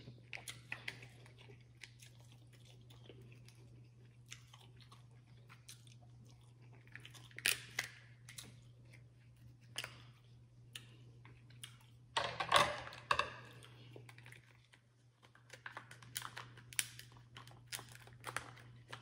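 Close-miked eating sounds from a seafood boil: hard shellfish shells cracking and clicking as meat is picked out, with chewing. The cracks come at irregular moments, loudest in a cluster about twelve seconds in.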